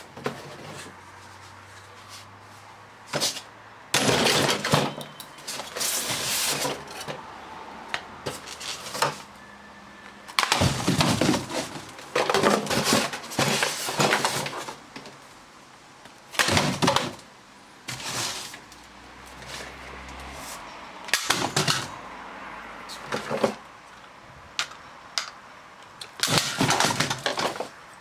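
Hard plastic parts of a robot vacuum cleaner being handled, knocked and rattled in irregular bursts, with clicks and clatter separated by short pauses.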